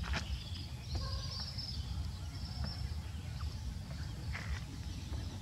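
Outdoor rural ambience: a steady low rumble with scattered short clicks, and faint high calls from fowl or birds about a second in and again near the middle.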